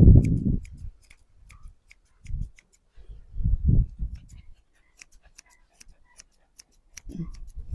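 Grooming scissors snipping through a dog's coat: a string of small, sharp, irregular clicks, with a few dull bumps of handling in between.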